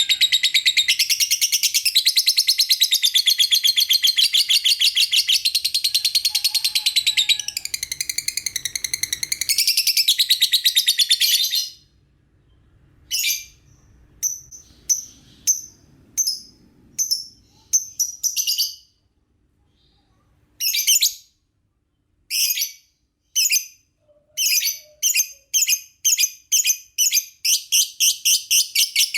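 Lovebird singing: a long, fast, high-pitched trilling chatter for about the first eleven seconds, then short chirp phrases broken by pauses, building again into rapidly repeated chirps near the end. It is a lure call meant to make other lovebirds answer.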